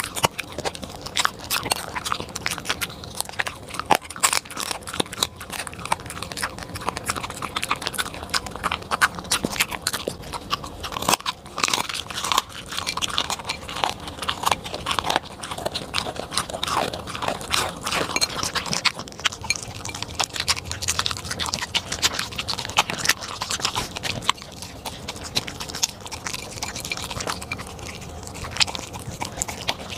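A corgi chewing and crunching food from a plate, in a dense, unbroken run of bites and crunches.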